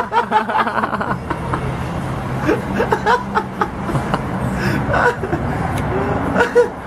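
Scattered snickers and chuckles of people laughing under their breath, over a steady low hum.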